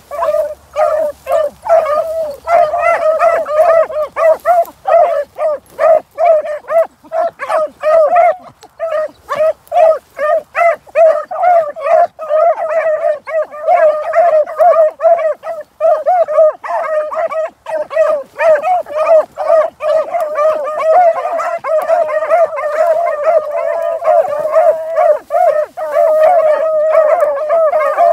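Dog yelping without a break, short high-pitched cries several times a second.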